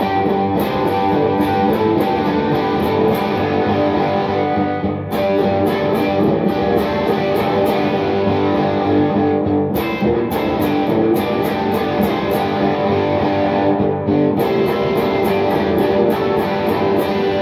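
Telecaster-style electric guitar being played, strummed and picked, over a steady ticking beat that drops out briefly a few times.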